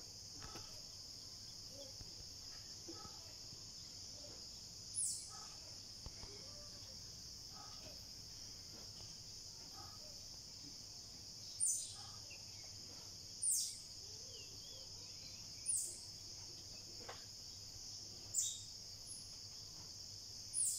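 A steady high-pitched chorus of crickets or similar insects, with faint scattered bird chirps. Over it a sharp call sweeping down in pitch comes six times at uneven intervals, the first about five seconds in.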